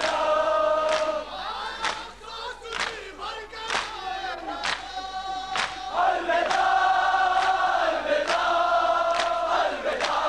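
Men's voices chanting a noha, a Shia mourning lament, together in unison, with sharp matam strikes keeping time about once a second. The chanting thins out in the middle while the strikes carry on.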